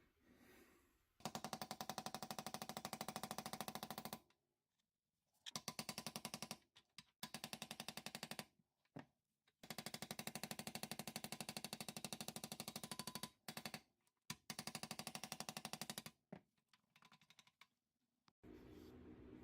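A power tool with a fast, hammering, rattling action, run in about six bursts of one to four seconds each with short pauses between.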